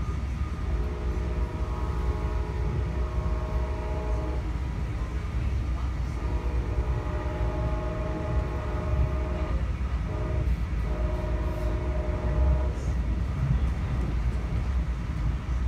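A Brightline train's horn, heard from inside a passenger coach over the steady low rumble of the train running. The horn sounds a chord of several notes in two long blasts, a short one and a final long one, the long-long-short-long pattern that signals a grade crossing.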